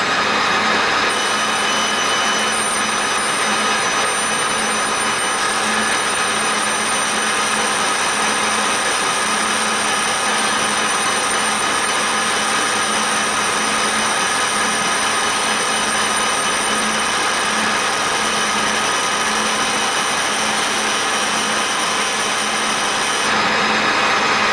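Laser marking machine running while it engraves a logo into a steel grinding wheel: a steady fan-like hiss with a set of high, steady tones from the marking head that shift about a second in and again around five seconds, and cut out about a second before the end.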